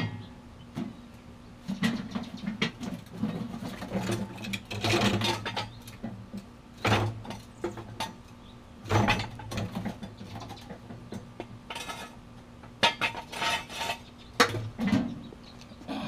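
Irregular metal clanks, knocks and rattles as the steel frame of a concrete mixer is set on a jack stand and its wheel is handled, some with a dull thud.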